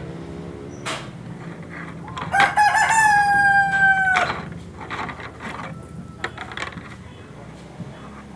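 A rooster crows once, about two seconds in. The call starts with a stutter, then holds and falls slightly in pitch. Around it are a few light clicks and taps as the coiled steel mainspring is handled.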